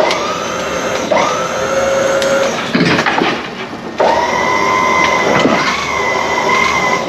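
A power tool's electric motor whining at a steady pitch. It starts and stops three times, spinning up in pitch at the start of one run.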